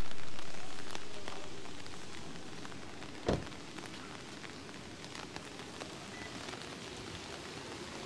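Rain falling on a wet street, a steady patter with many scattered drips, louder at first and settling over the first three seconds. One dull thump about three seconds in.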